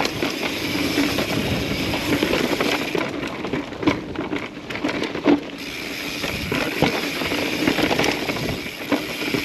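Mountain bike riding over a rocky dirt trail: steady tyre and rattling noise from the bike, with sharp knocks as the wheels strike rocks, the loudest about four and five seconds in.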